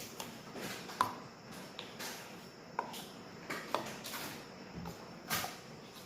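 Kitchen handling sounds: a few sharp clinks of a bowl and utensils, about a second in, near three seconds and near four seconds, with short scraping swishes between them.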